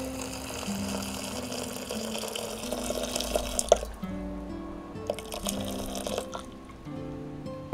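Water pouring in a thin stream into a copper kettle full of fresh herbs and hop cones. The stream stops about four seconds in and runs again briefly. Background music with plucked notes plays throughout.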